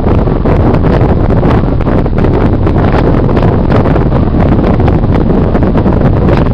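Loud, steady rushing noise with a heavy low rumble, like wind or overload on the microphone.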